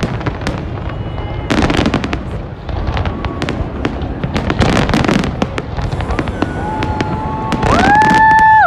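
Large fireworks display: a dense run of bangs and crackling shell bursts over a steady rumble. Near the end, a loud whistle rises in pitch, holds, and cuts off suddenly.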